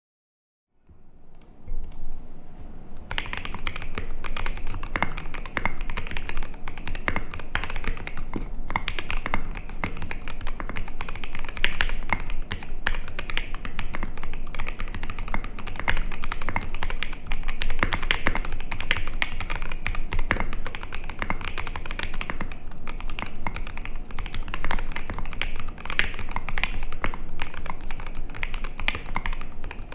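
Continuous typing on a MODE 80 mechanical keyboard with lubed Durock EV-01 linear switches, an aluminium plate and KAT-profile keycaps: a dense, unbroken stream of muted clacks. It starts about a second in.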